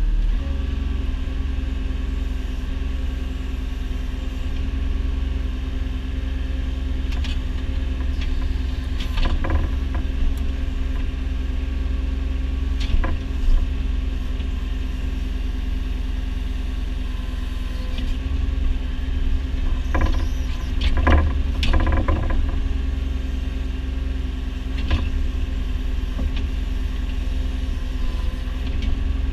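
Excavator's diesel engine running steadily with a deep hum, with occasional knocks and clanks of the machine digging a trench, a cluster of them about twenty seconds in.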